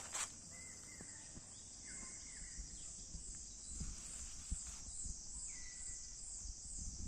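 Steady high-pitched insect chorus that pulses evenly, about two or three times a second, with a few short whistled bird calls over it. A few faint low thuds come in near the middle.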